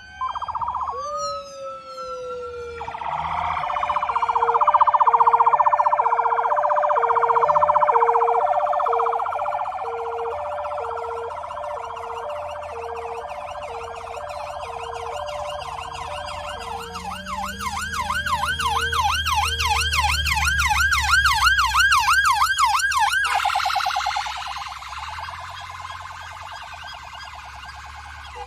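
Sirens from departing emergency vehicles overlapping. A two-tone horn switches between two low notes about once a second under a higher electronic wail. About two-thirds of the way through a fast yelp takes over, along with a passing engine, and the yelp cuts off abruptly a few seconds before the end.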